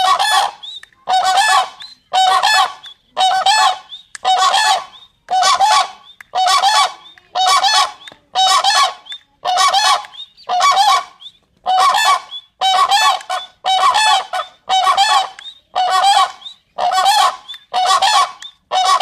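Crane giving loud honking calls, one about every second in a long, even series.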